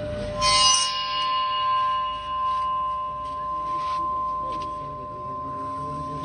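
Ambient music: a bright bell-like tone struck about half a second in, its many overtones fading over a couple of seconds while a single clear tone rings on steadily.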